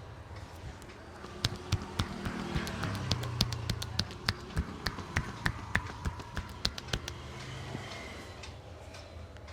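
Percussive hand strikes of a head massage: a quick run of about twenty sharp slaps and taps, three or four a second, starting about a second and a half in and stopping a couple of seconds before the end.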